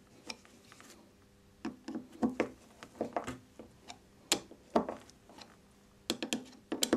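A screwdriver turning the small cover screws of a chainsaw carburettor's diaphragm cover, tightened crosswise: irregular short clicks and brief scrapes of metal on metal, with a quick cluster of clicks near the end.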